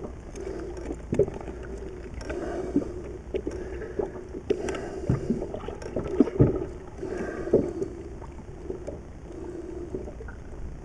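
Water lapping against a small boat's hull, with a few sharp knocks and thumps from handling on deck.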